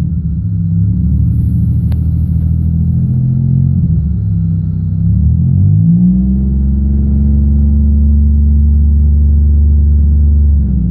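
1999 Pontiac Bonneville's 3800 V6 engine running unevenly at low speed, then revved up about five seconds in and held steady at higher revs before dropping back near the end. The engine is misfiring and throwing strange codes, and the owner says it is still not right after a plugged catalytic converter.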